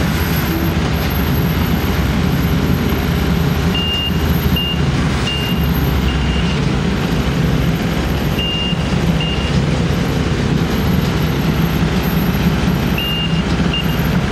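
Engines of working machines running steadily, while a reversing alarm beeps in short runs three times.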